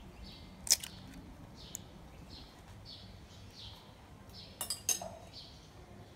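A metal spoon tapping eggshells and clinking against a china bowl while eggs are cracked: one sharp clink under a second in and a quick run of clinks near the end. Behind it, a bird gives short falling chirps about twice a second.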